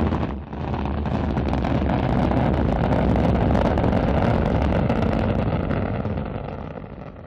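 Rocket engine burn sound effect: a steady, deep, noisy rumble that dips briefly about half a second in, then holds and fades away near the end.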